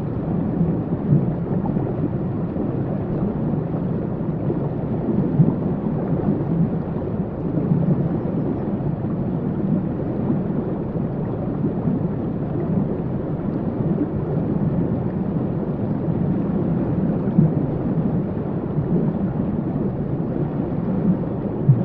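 Waterfall: a steady, deep rush of falling water, heaviest in the low end, with no change in level.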